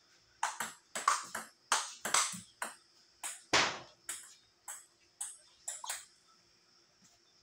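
Table tennis rally: the plastic ball clicking quickly back and forth off the rubber bats and the table, about three hits a second, the loudest about halfway through, until the rally stops at about 6 s.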